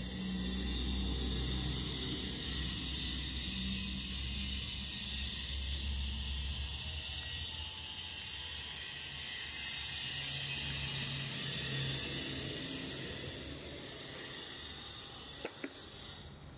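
Steady high-pitched hiss, with a low hum underneath for the first several seconds and a sharp click near the end, after which the hiss cuts off suddenly.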